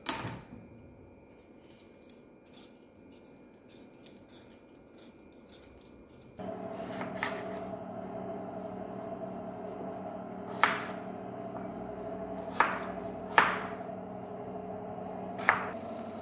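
Knife cutting raw potatoes on a wooden chopping board: faint small clicks at first, then about five sharp chops in the second half. A steady hum starts suddenly about six seconds in and runs under the chops.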